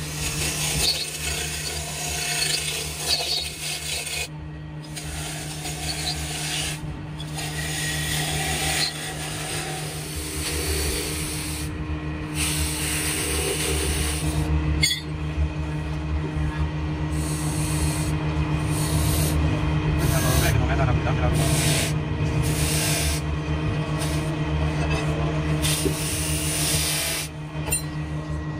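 Hand-held chisel cutting into a wooden bowl spinning on a belt-driven wood lathe, a continuous scraping of steel on wood over the steady hum of the lathe's electric motor.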